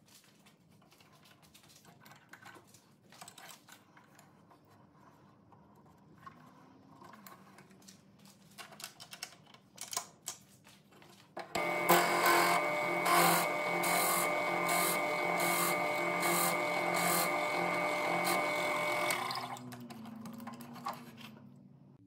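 Drill press motor starting up and running for about eight seconds as its bit bores down into a wooden pen blank held in a pen-drilling vise, then switched off near the end and running down. Before it starts, a few light clicks.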